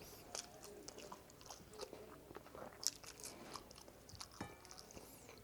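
A person chewing and biting food close to the microphone: a run of small wet mouth clicks and smacks, the loudest a sharp click nearly three seconds in.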